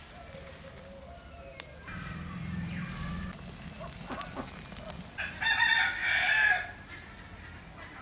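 A rooster crows once, a long call about five seconds in, with faint high bird chirps around it.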